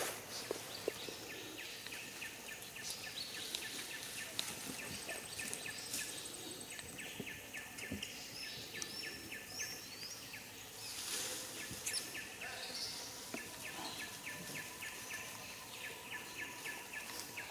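Outdoor ambience of insects and birds: a rhythmic high chirping, about four to five chirps a second, sets in about six seconds in, over a steady background hum of insects, with scattered small rustles and clicks in dry leaf litter.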